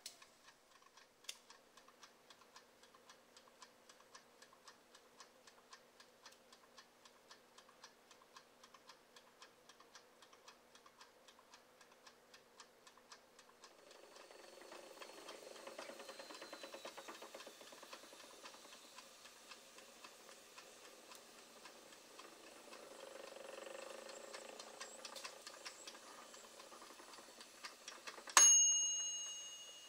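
Mechanical timer dial on an electric rotating skewer grill ticking steadily, with lamb skewers sizzling on the grill from about halfway. Near the end the timer's bell gives one loud ding and rings away as the knob is turned.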